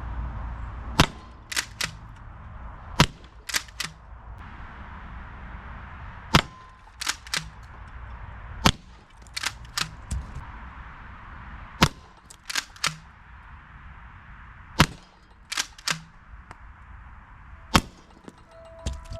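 Umarex HDX68 gas-powered pump-action shotgun firing about seven shots, one sharp crack every two to three seconds. Most shots are followed by a quick double click, the pump being worked back and forth to chamber the next ball.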